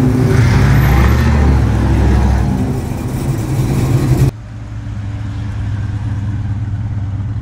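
A classic Dodge Charger's engine running loud as the car pulls away, picking up a little in the first seconds. About four seconds in it cuts suddenly to a quieter, steadier engine as a red Dodge Dart drives slowly past.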